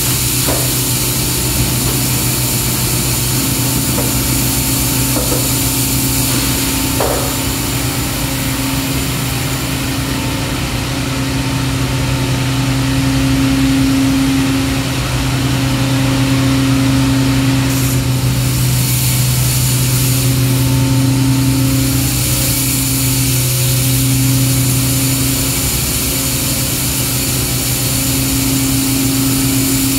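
Steady low hum and hiss of industrial machinery running on an injection-molding plant floor. A higher tone over the hum swells and fades every few seconds, and there are a few faint clicks in the first several seconds.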